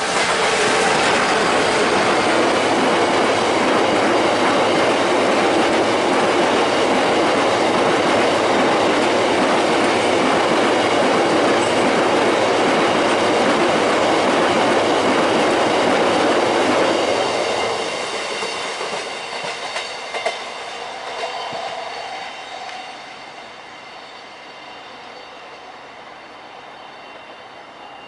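A train passing close by, its wheels running over the rails loud and steady for about seventeen seconds, then fading away as it recedes.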